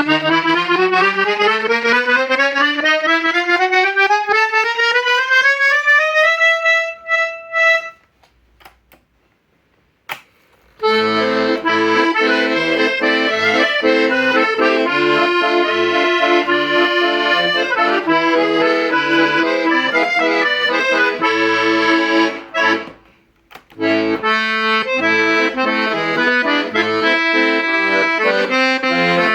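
Hohner Concerto III N accordion being played as a sound test: a scale climbing steadily up the keyboard to a held note, then a short pause with a single click. After that, sustained chords over repeated low bass notes, with one brief break near the end.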